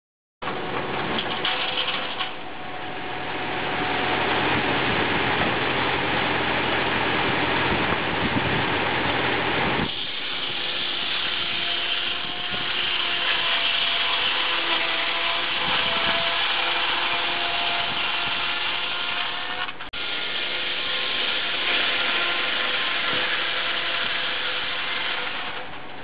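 Tractor-driven rack saw's circular blade ripping a Norway spruce slab down the middle, a continuous mechanical run of blade and cut with a few steady tones through it; the sound changes abruptly about ten seconds in.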